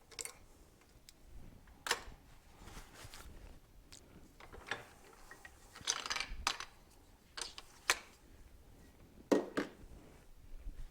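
Small metal fork parts and tools clinking and clattering as they are handled and set down on a workbench: scattered sharp knocks a second or two apart, the loudest about nine seconds in.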